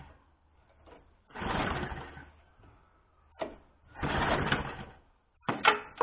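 Recoil pull-starter on the Briggs & Stratton engine of a petrol lawn mower, pulled twice: each pull is about a second of whirring rattle as the engine turns over without firing. Several sharp clacks follow near the end.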